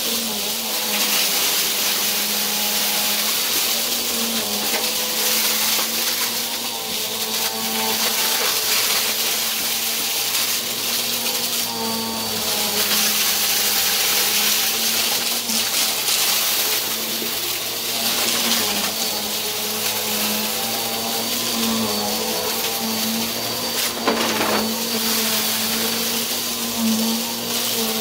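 Bissell upright bagless vacuum cleaner running steadily as it is pushed over a rug, a constant motor hum and airflow hiss with scattered crackling clicks of gritty debris being sucked up.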